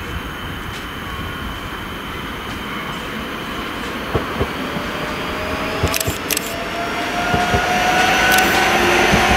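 Electric multiple unit approaching along the track and growing steadily louder, with its wheels clicking over rail joints and a motor whine coming in during the second half.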